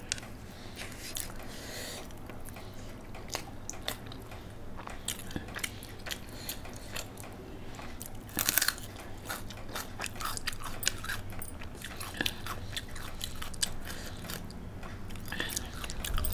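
A person chewing mouthfuls of hand-eaten rice and curry close to the microphone, with a run of short mouth clicks and a louder crunch about eight and a half seconds in.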